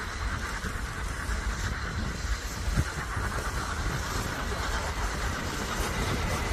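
Train hauled by the CT273 steam locomotive passing at a distance: a steady, even rumble with no whistle.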